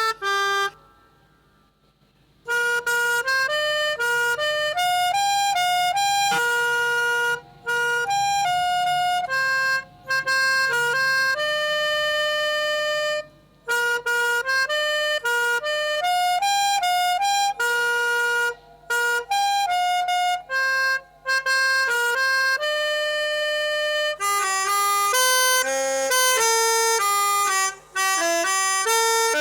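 Melodica playing a telolet basuri bus-horn melody: held notes in short phrases, with a pause of about two seconds near the start. The notes come quicker and busier in the last five seconds.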